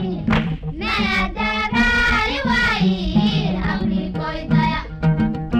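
Background music: a high voice singing a melody over a repeating low accompaniment.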